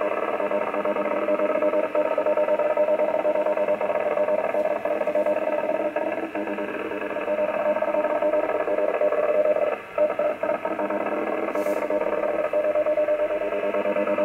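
A strong, steady buzzing signal with several tones, received over lower sideband on an Icom IC-7400 shortwave transceiver's speaker. It drops out briefly about ten seconds in.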